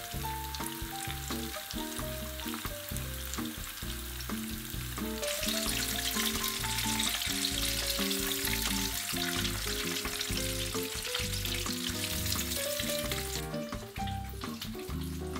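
Floured pieces deep-frying in a wok of hot oil: a dense crackling sizzle that grows louder about five seconds in and drops away near the end. Soft background music plays throughout.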